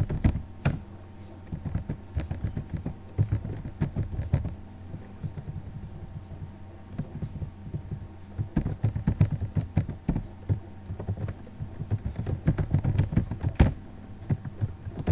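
Typing on a computer keyboard: runs of quick keystrokes broken by short pauses, over a steady low hum.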